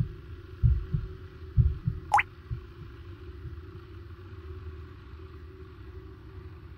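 Heartbeat, paired low thumps about once a second that stop after about two and a half seconds, over a steady low hum. A single water drip with a quick rising plop comes about two seconds in.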